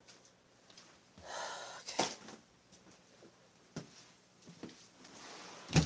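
A person's breath, one audible exhale about a second and a half in, amid a few faint clicks, with a sharp knock just before the end.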